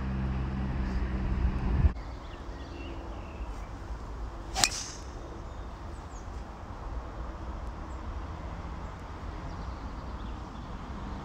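A golf club strikes a ball off the tee about four and a half seconds in: a single sharp crack with a brief ring. Before it, a steady motor hum stops abruptly about two seconds in.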